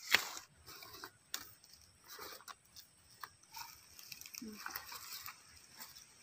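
Large fresh leaves being cut and handled: a sharp snap right at the start, then rustling and crackling of the leaves and the dry leaf litter as they are laid down in a pile.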